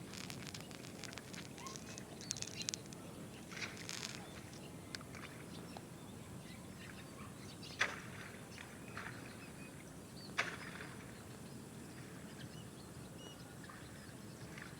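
Faint, short bird chirps over a steady low outdoor hiss, with scattered crackles and two sharp clicks about halfway through and a few seconds later, the loudest sounds.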